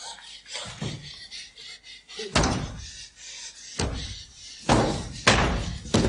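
A series of sharp bangs and thuds, faint and sparse for the first two seconds, then loud ones coming about once a second for the rest.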